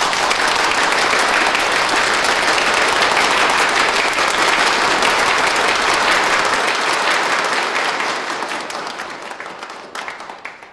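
A large audience applauding, starting all at once and holding steady, then dying away over the last few seconds.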